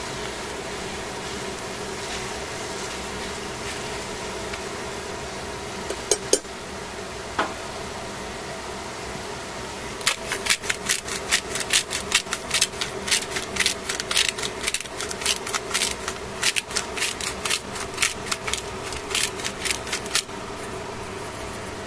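A dense run of sharp, rapid clicks for about ten seconds from coarse salt being dispensed from its container over chicken in a steel pan, preceded by a few clicks of tongs against the pan. A steady hum runs underneath throughout.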